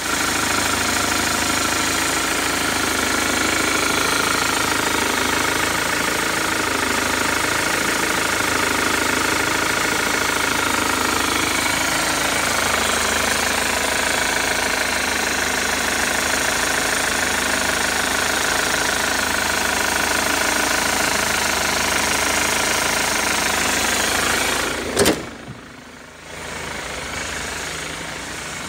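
Holden Captiva 2.2-litre four-cylinder turbo diesel idling steadily. About 25 seconds in there is one sharp, loud thump, after which the engine is heard more faintly.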